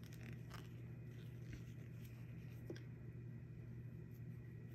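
Faint rustle of yarn and a few light scratchy ticks from knitting needles as stitches are worked, over a steady low hum.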